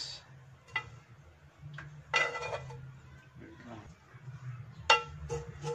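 Metal tongs clinking against a frying pan and dish while toppings are placed: several sharp clinks with short metallic ringing, the loudest about five seconds in.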